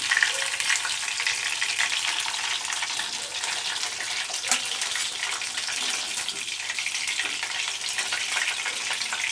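Hot oil sizzling and crackling around fried rohu fish steaks in an iron kadai, with occasional clicks and scrapes of a metal spatula as the fully fried steaks are lifted out of the oil.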